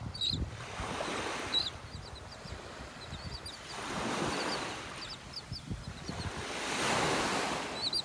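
Gulf of Mexico surf washing onto the beach, the noise swelling and ebbing about every three seconds, with faint high chirps throughout.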